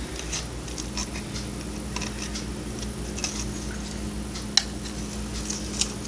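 Small, irregular scratches and clicks of a kitchen knife cutting and scraping glittery tape along the edge of a light switch cover, with a couple of sharper ticks near the end.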